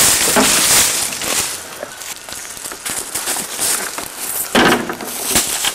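Footsteps and rustling through dry leaf litter on a forest floor, crackling and crunching irregularly.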